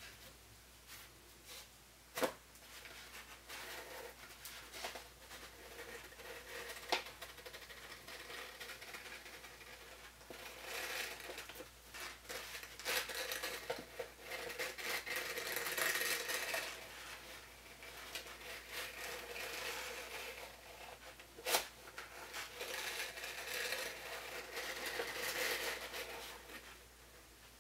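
Origami paper being handled and worked in the hands, rustling and crinkling, with about three sharp clicks of the paper snapping or tapping.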